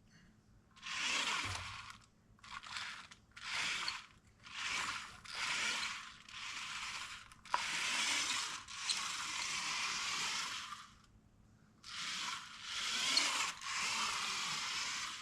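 Remote-control Lego car's electric motor and plastic gearbox whirring in a series of short runs of a second or so, with a longer run of about three seconds in the middle, as the car is driven in stops and starts.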